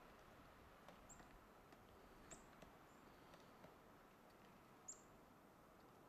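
Near-silent woods with a few faint, irregular taps from a pileated woodpecker working at a dead trunk, and three brief high chirps with a falling pitch from a small bird, the last and loudest near the end.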